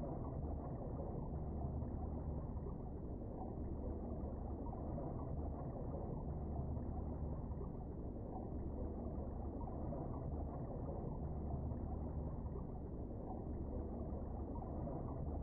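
Steady, muffled low rumble of underwater ambient noise picked up through an action camera's waterproof housing, with nothing high-pitched and no distinct events.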